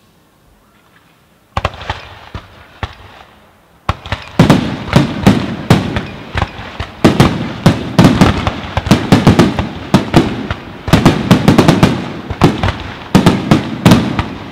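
Aerial fireworks display: near quiet at first, then shell bursts begin sharply about a second and a half in, and from about four seconds in a dense, rapid barrage of loud bangs follows without a break.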